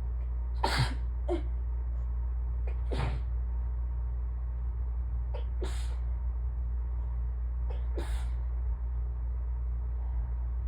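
A person sneezing repeatedly in an allergy sneezing fit: four sneezes about every two and a half seconds, each paired with a shorter, fainter sound. A steady low hum runs underneath.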